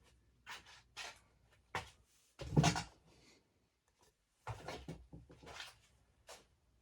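Irregular knocks and rustles of things being handled, a dozen or so short bumps with dead silence between them, the loudest about two and a half seconds in.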